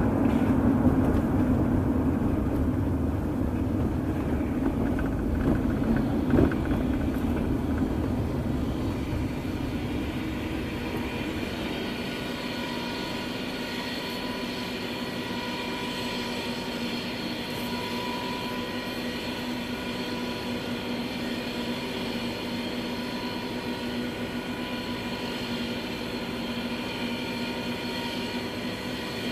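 Road and engine noise of a car heard from inside the cabin while driving. A heavy low rumble eases off over the first ten seconds or so, then settles into a steadier, quieter hum with several even tones.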